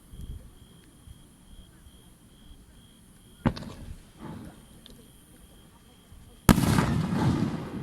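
Aerial fireworks bursting: a sharp bang about three and a half seconds in with a few smaller pops after it, then a much louder boom near the end that rumbles and crackles on.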